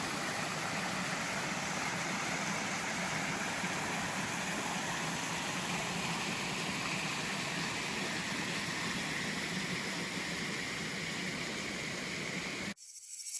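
Waterfall and creek rushing: a steady, even hiss of falling water that cuts off suddenly near the end.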